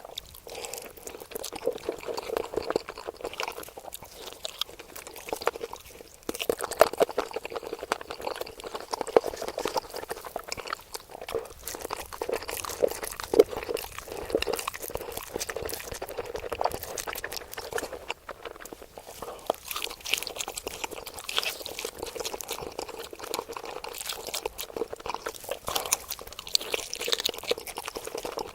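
Close-miked eating sounds: wet chewing and crunching with many quick, irregular clicks of mouth and food, louder from about six seconds in.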